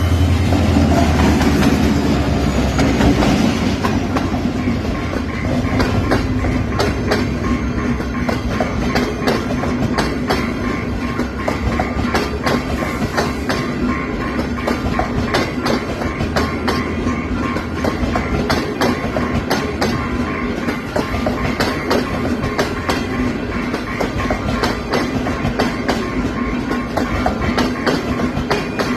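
Train running on rails: a deep rumble in the first few seconds, then steady clickety-clack of wheels over rail joints.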